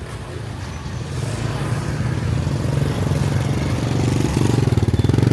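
A motorbike engine running close by, its low, rapidly pulsing note getting steadily louder as it approaches.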